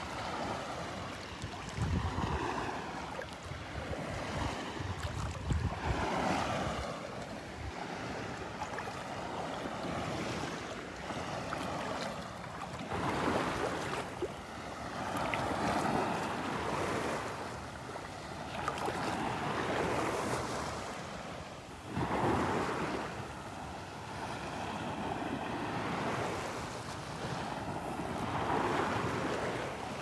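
Small, gentle Gulf waves lapping and washing up the sand at the water's edge, a soft rush that swells and falls every few seconds. Some low wind rumble on the microphone in the first few seconds.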